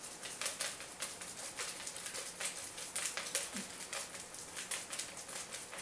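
Folded paper entry slips sliding and ticking around inside a plastic bowl as it is swirled, a run of quick irregular light taps.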